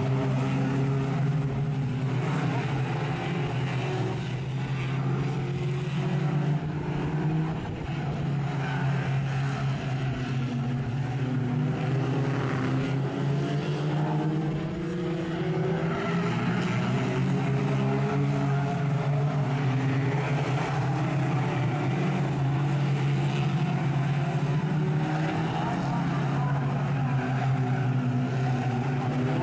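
Several banger racing cars' engines running hard around an oval track, many overlapping engine notes rising and falling as the cars accelerate and ease off, over a steady low drone.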